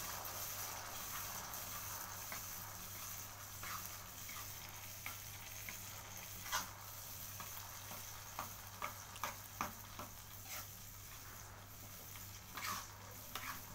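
Thick chili sambal sizzling in a pan as it is stirred, the spoon clicking and scraping against the pan now and then. The sambal is being cooked down to reduce its water content.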